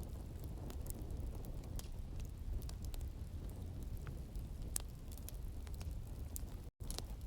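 Wood fire crackling in a fireplace, irregular sharp pops over a steady low rumble, with soft rain in the background. The sound drops out completely for a split second near the end.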